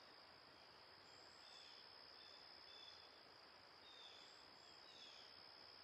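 Near silence: faint hiss with a steady high-pitched tone and a few very faint short chirps.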